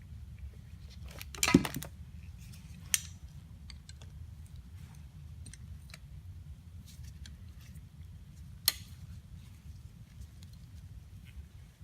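Small metallic clicks and clinks of hand tools as a tap is worked into a carburetor's threaded hole with a tap wrench, with a short clatter about a second and a half in and sharp single clicks at about three and nine seconds, over a steady low hum.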